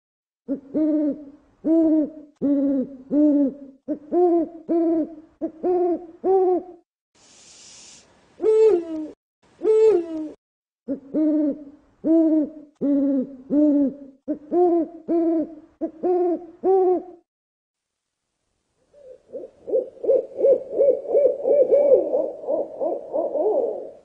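An owl hooting: a long series of low, separate hoots roughly a second apart, with a short break partway through. After a pause it gives a fast run of quick hoots that grows louder near the end.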